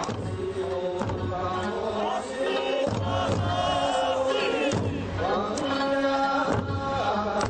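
Okinawan Eisa music: voices chanting and singing a folk song, with a few sharp drum strikes.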